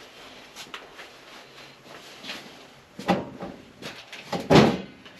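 A few sharp clunks and knocks, like a door, panel or object being handled: one about three seconds in, a quick cluster of clicks after it, and the loudest just before the end.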